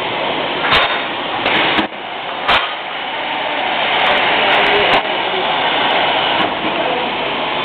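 Paper stacking machine running: a steady mechanical whir with sharp clicks at irregular moments as the sheets move through on its belt conveyor.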